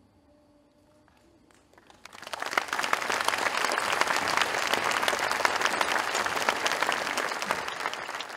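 After a brief hush with the orchestra's last chord fading out, audience applause breaks out about two seconds in: many hands clapping densely and steadily, tailing off near the end.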